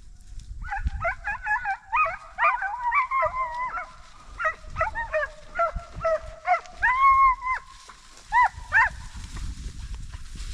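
A pack of deer hounds baying, several dogs at once. A quick run of overlapping bays is followed by one longer drawn-out howl about seven seconds in and two short bays near the end.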